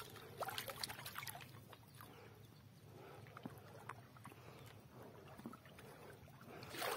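Faint splashing of shallow river water as a silver arowana is let go from the hand, with a cluster of small splashes in the first second or so, then only scattered faint water sounds.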